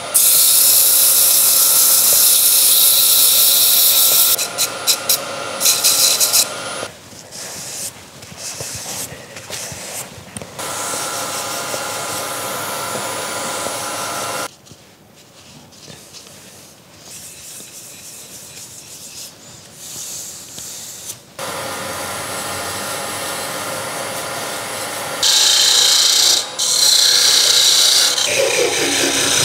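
Abrasive paper sanding a turned wooden gnome hat as it spins on a running wood lathe. The hiss of the sanding comes and goes in loud passes over the steady hum of the lathe, and goes quieter for several seconds midway.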